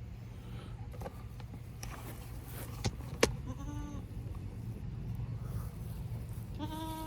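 Goat bleating twice, two short calls a few seconds apart, with two sharp clicks just before the first bleat.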